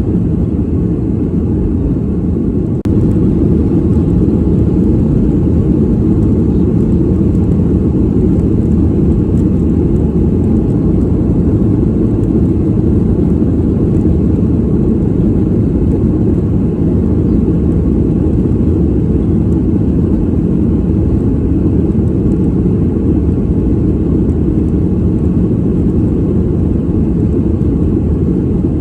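Airliner cabin noise heard from a passenger seat: a steady, low, deep rumble. A brief click and a small dip in level come about three seconds in.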